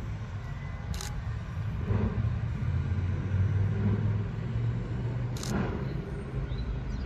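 GWR Castle-class four-cylinder 4-6-0 steam locomotive No. 7029 Clun Castle working at a distance: a steady low rumble with soft beats roughly once a second. Two sharp clicks, about a second in and past the middle.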